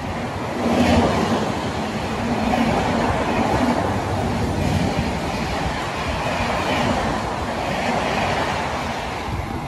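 Passenger coaches of an express train running past at full speed. There is a loud, steady rumble of wheels on rail that swells and falls in repeated beats as the bogies go by. It is loudest about a second in and eases off near the end.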